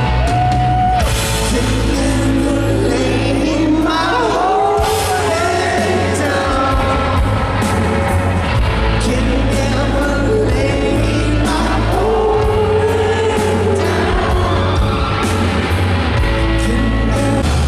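Loud rock music, apparently a live band: a singer over heavy bass and steady drum hits.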